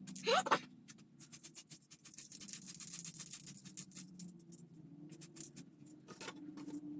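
Soft background music with steady low tones, over irregular rattling and clicking, and a brief rising tone right at the start.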